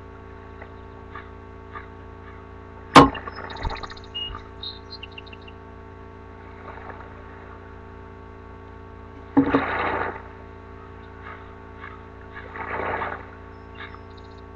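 Drink cans being handled close to a webcam microphone: a sharp knock about three seconds in, then two short bursts of rustling noise later on, over a steady electrical hum.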